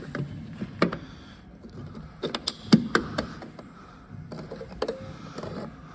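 Scattered clicks and knocks as a cooling-system pressure tester's bayonet adapter is handled and fitted onto a coolant expansion tank's filler neck. The loudest is a quick cluster of sharp clicks about two to three seconds in.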